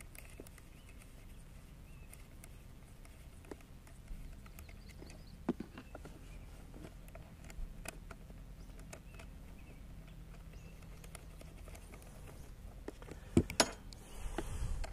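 Scattered small clicks and taps of hands handling ATV battery cables and terminal hardware, with two sharper clicks close together shortly before the end as a screwdriver is put to the battery terminal.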